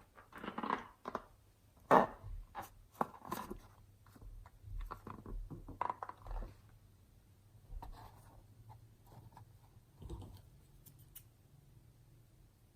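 Fluffy slime being worked and squished by hand: irregular sticky crackles and squelches, busy in the first half and sparser later.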